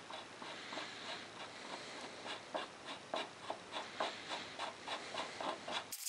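Rubber throttle twist grip and its plastic sleeve being worked back and forth on a Honda Passport C70's handlebar: light, irregular clicks and scrapes of grip rubbing on the metal bar, a few each second. The sound cuts off just before the end.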